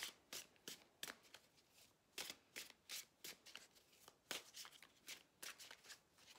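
A deck of tarot cards being shuffled by hand: a steady run of short, quiet card slaps and flicks, about three a second.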